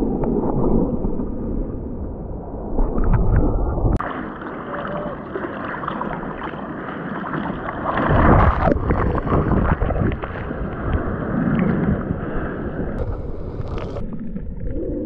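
Water rushing and splashing around a surfboard, picked up by an action camera mounted on the board's nose, with wind on the microphone. The sound changes abruptly about four seconds in, and a louder surge of water comes about eight seconds in.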